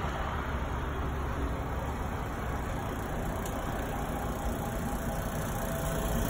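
Steady low running noise from a rotisserie smoker's machinery, its draft fan and rotating rack drive, with no distinct clicks or knocks.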